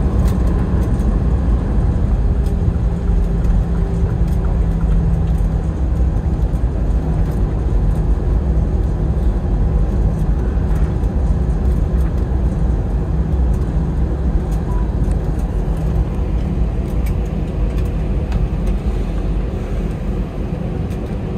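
Airbus A320 cabin noise from a forward window seat: a loud, steady rumble of engines and airflow with a faint low hum, easing slightly near the end.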